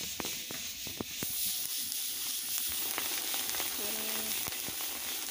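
Rice grains being roasted in hot sand in a metal pot over a wood fire for puffed rice. The stirring keeps up a steady sizzling hiss, studded with many small sharp crackles.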